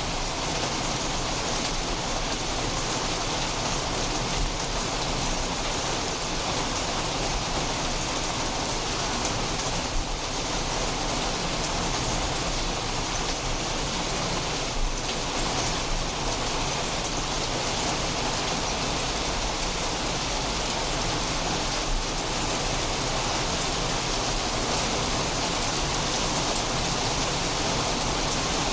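Steady rain falling during a storm, with a few brief louder taps standing out from the even patter.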